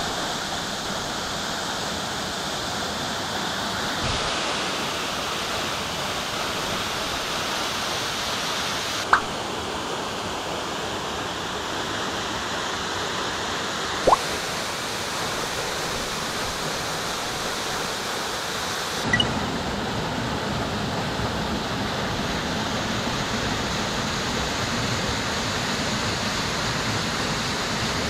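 Kasagi Fudo Falls' 40 m tiered male fall: a steady rush of falling water whose tone shifts abruptly every few seconds. Three short clicks break in partway through.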